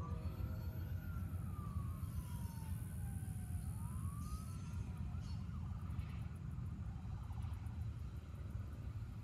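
A siren wailing, its pitch sliding slowly up, down and up again before fading out about five seconds in, over the steady low rumble of a passing double-stack intermodal freight train.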